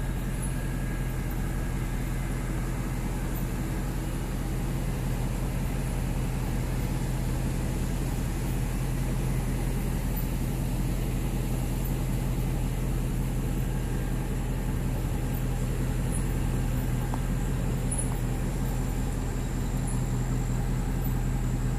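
Car engine running steadily at low speed, a constant low hum with a faint even rush of road noise.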